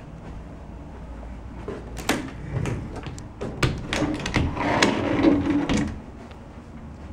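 Bifold closet doors being pulled open by hand: a string of clicks, knocks and clattering from the folding panels and their track, lasting about four seconds, busiest just before it stops.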